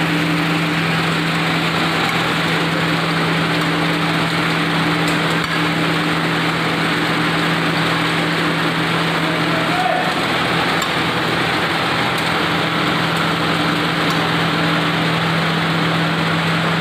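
Turmeric grinding machine with its vibratory sifter running steadily: a loud constant mechanical hum over a whirring rush of noise.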